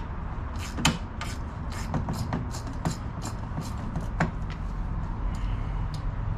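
Quarter-inch ratchet clicking in uneven strokes as the intake manifold bolts on a Chevy 5.3L V8 are broken loose and turned out, about two clicks a second, over a steady low hum.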